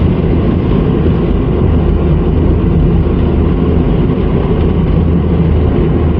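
Steady low rumble of a car driving on an asphalt road, heard from inside the cabin: tyre and engine noise with no breaks or changes.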